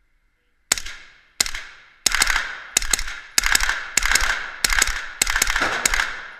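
A suppressed 9mm short-barrelled rifle (Quarter Circle 10 with a SilencerCo Octane 9 suppressor) fired in a string of about a dozen semi-automatic shots. The first two come about 0.7 s apart, then the shots come quicker, some in close pairs, each trailing off in the indoor range's reverberation.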